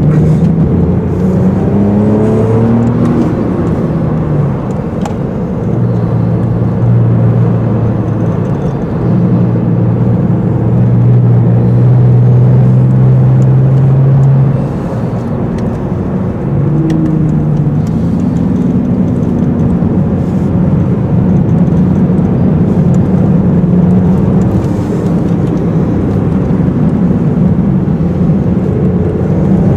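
Porsche 996 Carrera 2's flat-six engine, heard from inside the cabin, running hard on track: the engine note climbs in pitch near the start, holds high and loud, eases off about fifteen seconds in, then climbs again.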